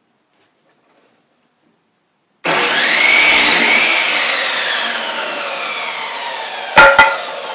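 Power saw starting suddenly about two and a half seconds in, its pitch rising briefly as it cuts through lumber, then falling slowly as the blade winds down. Two sharp knocks close together near the end.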